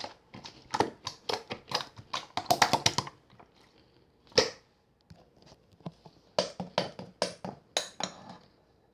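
Slime being pressed and squished by hand, giving irregular runs of short wet clicks and pops. There is a dense run at the start, a single loud pop midway, and another run later.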